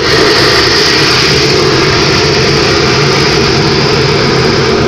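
A large metal industrial vessel venting gas through a side opening: a loud, steady rushing roar with a high hiss over a low rumble.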